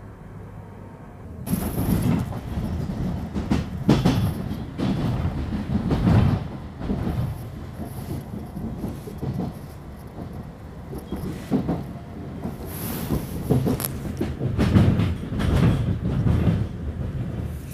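Northern line tube train (1995 stock) running on the rails, wheels clattering. A quiet steady hum in the first second and a half gives way suddenly to loud running noise that swells and fades in waves.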